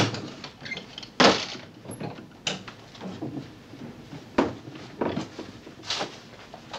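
Wooden wardrobe door clicking open, then a handful of sharp wooden knocks and rustling as folded linen is taken out and handled. The loudest knocks come at the start and about a second in.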